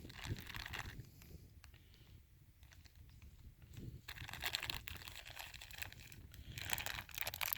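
Faint scattered clicks and rustling from hands working felt wads into the muzzles of a muzzle-loading shotgun, busier near the start and again in the second half.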